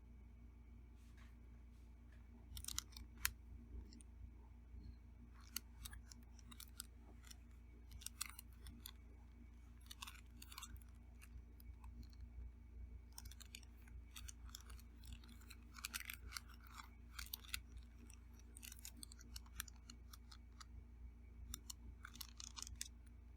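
Eating sounds: soft chewing and the clicks and scrapes of utensils on a plate, in scattered clusters of short sharp ticks beginning about two and a half seconds in.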